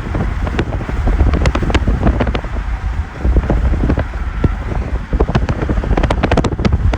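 Storm wind buffeting the microphone in a heavy rumble, with many scattered sharp clicks and ticks, thicker near the end.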